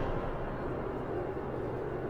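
Wind blowing in a blizzard, a steady rushing noise with a low rumble.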